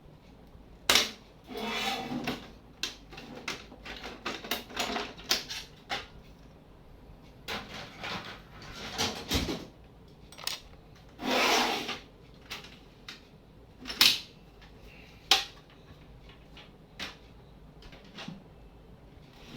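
Plastic casing of a Canon LBP2900 laser printer being pried apart with a screwdriver. Irregular sharp clicks and snaps come from the latches and panels, with a few short stretches of scraping and rattling.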